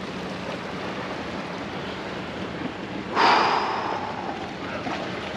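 Sea washing against a rock breakwater, with wind on the microphone. About three seconds in comes a sudden loud rush of noise that fades over about a second.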